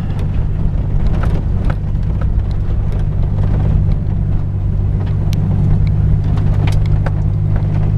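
1999 Isuzu Amigo driving off road, heard from inside: a steady low engine and drivetrain drone, with scattered clicks and knocks from the rough gravel track.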